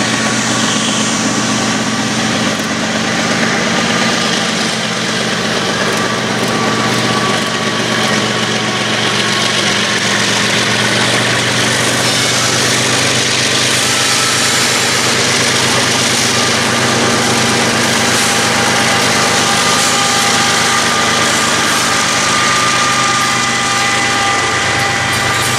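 Diesel locomotives of a CSX freight train running steadily as they approach and come close. A steady engine note lies under a high steady whine.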